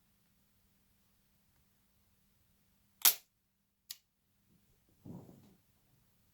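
Two sharp clicks of laptop parts being worked during disassembly, a loud one about three seconds in and a smaller one a moment later, followed by a brief soft rustle.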